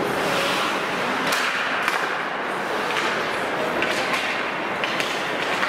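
Ice hockey play: skates scraping on the ice, broken every second or so by sharp knocks of sticks and puck against the ice and boards.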